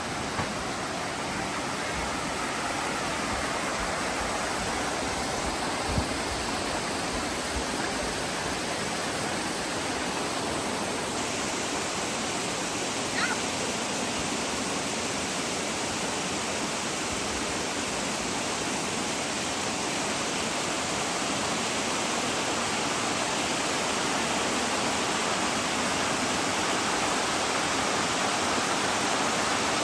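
Steady rushing of water cascading down a waterfall.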